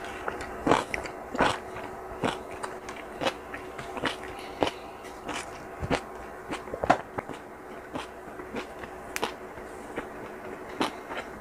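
Close-miked chewing of a mouthful of rice, sliced pork and kimchi, with irregular wet crunches and clicks several times a second, over a faint steady hum.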